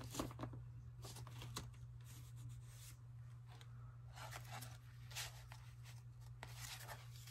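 Faint rustling and light scraping of paper being handled, as a strip of printed paper is slid into a paper envelope pocket on a journal page, with a steady low hum underneath.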